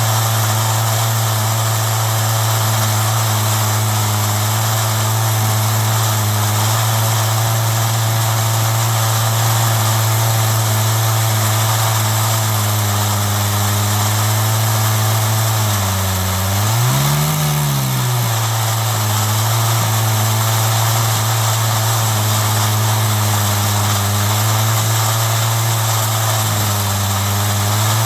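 Chainsaw on an Alaskan mill running steadily under load as it cuts walnut into slabs. Its pitch briefly rises and drops back about two-thirds of the way through.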